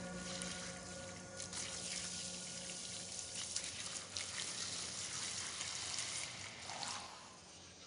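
Quiet closing passage of an electronic dub track: a hissing, crackling noise texture with scattered clicks, over which held synth tones fade away in the first second or so. The noise thins and drops near the end.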